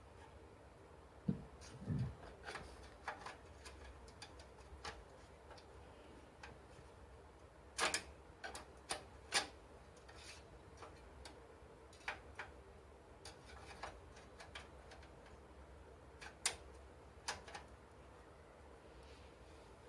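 Irregular clicks and light knocks of desktop computer parts and case fittings being handled and fitted back into the tower, with a low thump near the start and sharper clicks about eight, nine and a half and sixteen seconds in.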